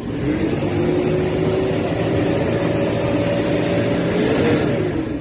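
A motor vehicle engine running loudly, its hum climbing in pitch through the middle and dropping back near the end.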